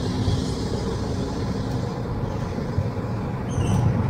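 Car cabin road noise while driving: a steady low rumble of engine and tyres, with a few short high chirps near the end.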